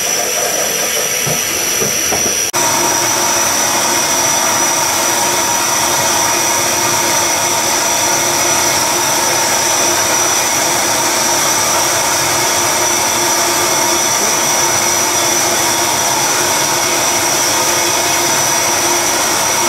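Steady, loud hiss of steam from the LMS Royal Scot class steam locomotive, with a high whistling tone running through it. It steps up suddenly about two and a half seconds in and then holds even.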